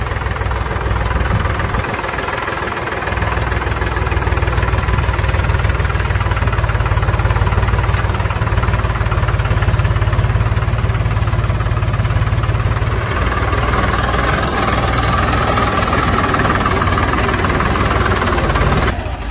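Tractor engine running steadily at a low idle, getting a little harsher about two-thirds of the way through.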